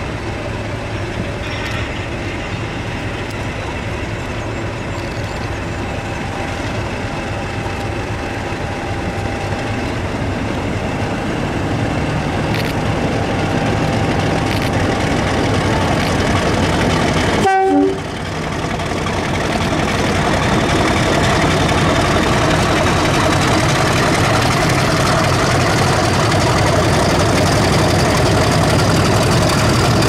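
A pair of Class 50 diesel locomotives, 50007 'Hercules' and 50049 'Defiance', running with their English Electric 16-cylinder engines and getting steadily louder. The sound breaks off sharply for a moment about two-thirds of the way in, then carries on at a higher level.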